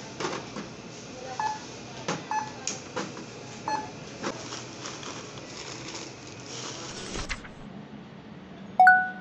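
Checkout barcode scanner beeping three times, short and high, as groceries are scanned, among clunks and knocks of cans and packs being handled and bagged. Near the end, one louder single beep.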